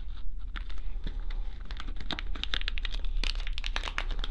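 Packaging crinkling and rustling in irregular crackles as a small electronic part is unwrapped by hand.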